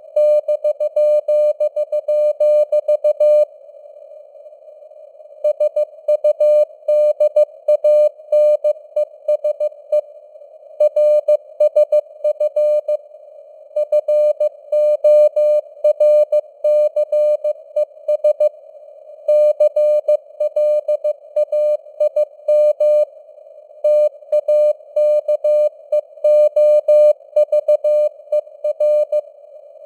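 Morse code (CW) keyed at 15 words per minute, spelling out news headlines in short and long beeps of a single mid-pitched tone, with brief pauses between words. Beneath it runs a narrow band of simulated radio hiss around the tone's pitch.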